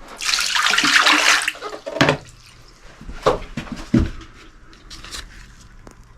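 A toilet flushing: a loud rush of water lasting about a second and a half, followed by several sharp knocks and clicks.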